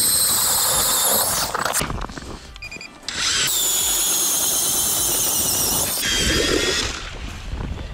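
A battery-powered StrikeMaster ice auger drills through lake ice: a high electric motor whine with the bit grinding the ice. It stops for about a second about two seconds in, then spins up again, and eases off briefly near the end.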